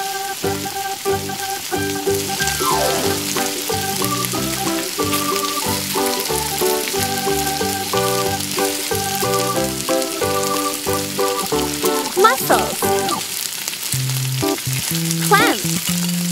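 Salmon and shrimp sizzling as they fry in oil in a miniature steel wok, under background music with a plucky melody.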